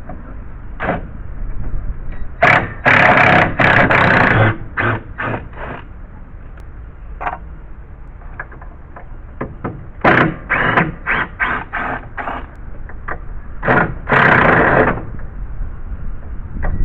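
Power drill with a long extension bit backing deck screws out in repeated trigger bursts: a run of about two seconds a few seconds in, a string of short bursts, and another longer run near the end.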